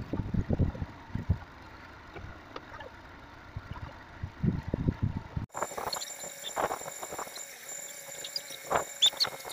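Truck-mounted knuckle-boom crane at work lifting a shipping container: a low, uneven rumble with knocks. About halfway through it changes abruptly to a fainter background with scattered sharp clicks and clinks.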